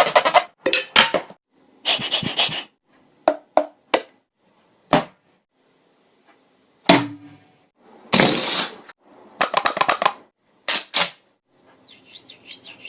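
A person making sound effects with the mouth: a string of sharp pops and clicks and a few short hissing bursts, separated by pauses, with a longer silent gap near the middle.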